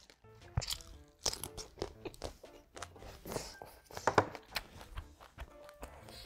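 Close-miked crunchy biting and chewing of food, with sharp crunches that are loudest about four seconds in, over soft background music.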